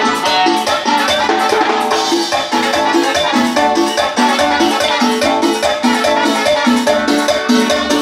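Cumbia band playing live: a melody over an even, fast dance beat.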